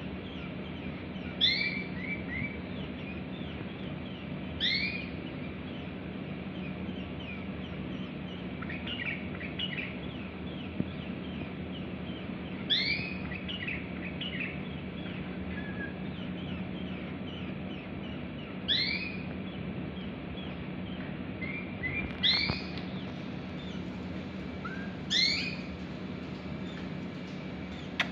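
A caged bulbul calling: short, clear, whistled phrases of two or three quick notes, repeated every three to six seconds, with a few softer chirps between them. A steady low hum runs underneath.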